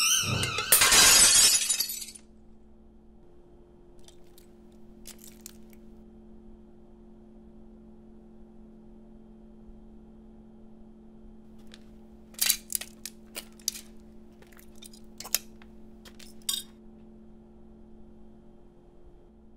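Glass shattering in one loud crash about a second in. It is followed by a low steady hum and, well after the crash, a few faint sharp clicks.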